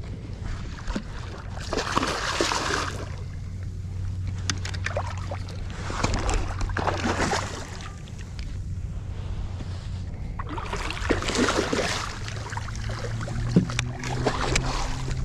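A hooked fish thrashing at the water's surface beside a kayak, splashing in four bursts of a second or two each, roughly every four seconds, over a steady low hum.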